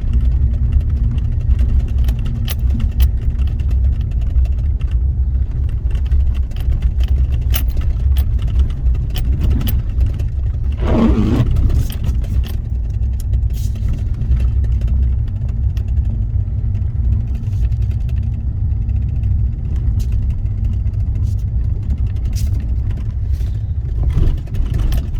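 Steady low rumble of a vehicle's engine and road noise heard from inside the cabin while driving, with a steady hum under it and a brief wavering sound about eleven seconds in.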